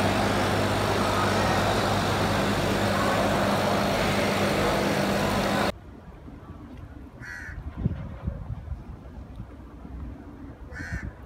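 Steady loud din of a busy fish market with a constant low hum, which cuts off abruptly about halfway through. In the quieter open air that follows, a crow caws twice, a few seconds apart.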